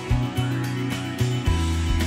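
Background music: a guitar-led track with a steady bass line and beat.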